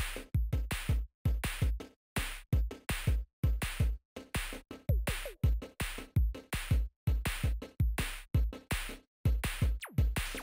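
Electronic background music with a steady drum-machine beat.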